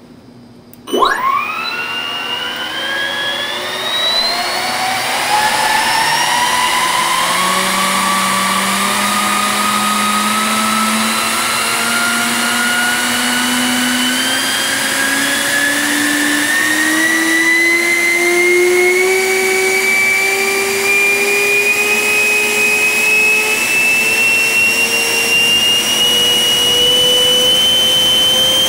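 Electric ducted fan of a FlyFly Mirage model jet starting about a second in and spinning up, its whine climbing slowly and steadily in pitch as it gains speed.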